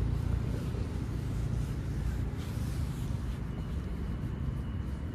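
Steady low rumble of road traffic, with a faint thin high tone coming in about three seconds in.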